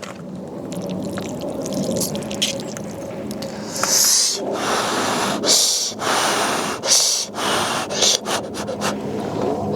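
Jjajangmyeon noodles being slurped, in several short noisy pulls through the middle of the stretch.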